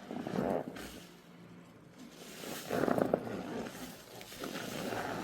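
Squeaky rubbing of foam, in three drawn-out strokes; the middle one is the loudest.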